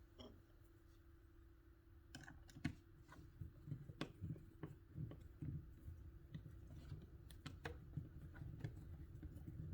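Quiet, irregular light clicks and taps, starting about two seconds in, of hands working loose a wall outlet's plastic face plate and cord kit parts.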